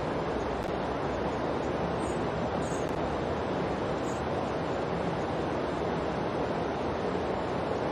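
Steady, unbroken rushing noise like surf or wind, with no music or audible voice: the masking sound bed of a subliminal affirmation track.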